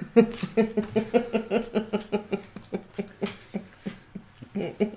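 A woman's giggling laugh, a long run of quick 'ha-ha' pulses about five a second, easing off near four seconds in and picking up again just before the end.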